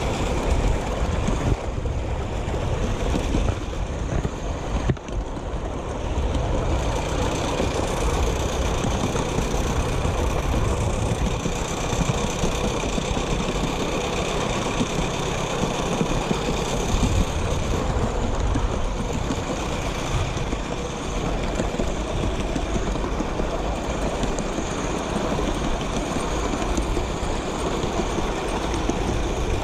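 Miniature steam train running steadily along its track: a continuous rumble and rattle of the train in motion.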